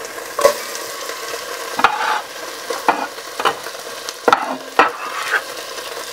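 Sliced onion sizzling in hot oil in an enamelled cast-iron pot, with about seven short, sharp knocks as the pieces are dropped in by hand.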